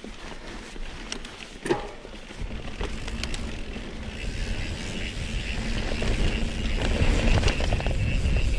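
Mountain bike rolling along a sandy dirt trail, with tyre noise, rattling clicks from the bike and wind rumbling on the microphone. The rumble grows louder from about two seconds in as the bike picks up speed. There is a sharp knock just before that.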